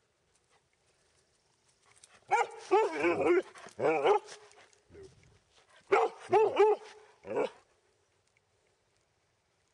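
A dog barking in two runs of quick barks, the first about two seconds in and the second about six seconds in.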